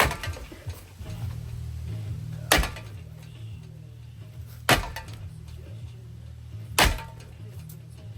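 Four hard, clanking blows on a ceiling fan, about two seconds apart, as it is being smashed.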